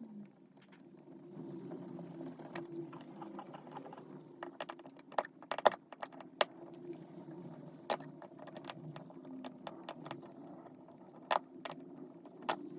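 Irregular sharp metallic clicks and taps of a flathead screwdriver and small screws as a wall light switch's mounting screws are backed out, over a steady low hum.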